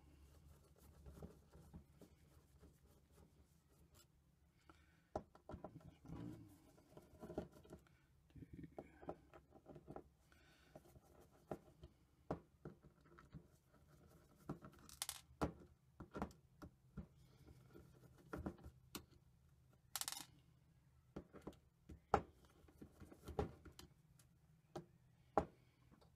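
Faint, scattered clicks and scrapes of a Torx screwdriver turning out the lid screws of a Samsung hard drive, with a few sharper metallic clicks and two brief scraping hisses.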